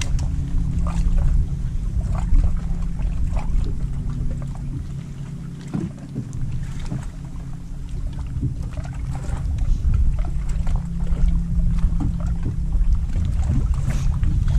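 Steady low hum of a bass boat's bow-mounted electric trolling motor, easing off about six seconds in and then picking up again, under a rumble of wind on the microphone and scattered small ticks and knocks.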